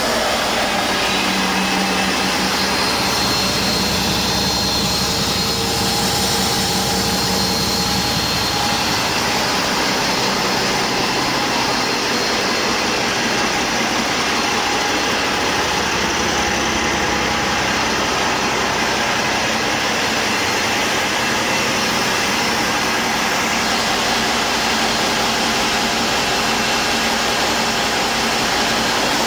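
Cummins ISX15 inline-six diesel engine running steadily on a test stand, sounding healthy. A high whine begins to rise near the end.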